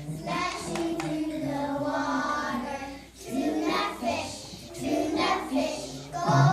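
A young child's voice singing, one long held phrase followed by a short break about three seconds in, then shorter phrases.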